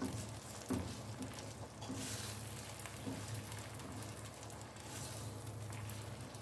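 Tomato-and-onion sauce sizzling and bubbling in a granite-coated nonstick pan while a silicone spatula stirs tomato paste through it, with soft scrapes and stirring noises. A steady low hum runs underneath.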